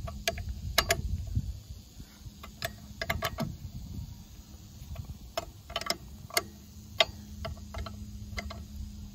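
Half-inch ratcheting wrench clicking in short irregular runs as it tightens a nut on a steel bracket, over a steady low hum.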